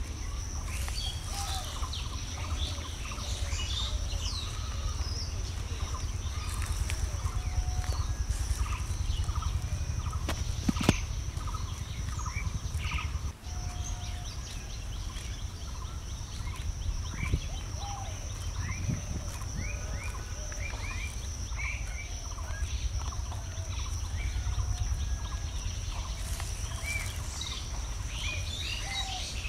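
Many birds chirping and calling in short, quick notes over a steady high whine and a constant low rumble. A single sharp knock sounds about eleven seconds in.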